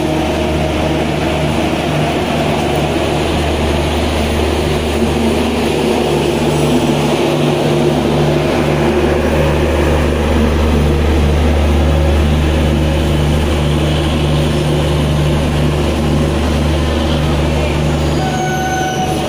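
Electric MEMU train running at speed, heard from on board: a steady rumble of wheels on the track with a low electrical hum. A brief pitched tone sounds near the end.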